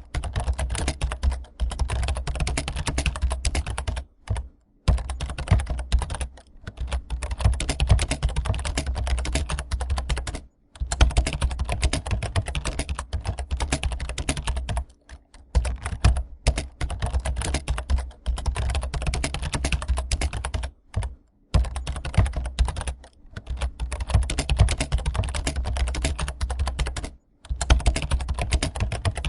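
Fast, continuous typing on a computer keyboard: a dense stream of key clicks with a low thud under them, broken by short pauses every few seconds.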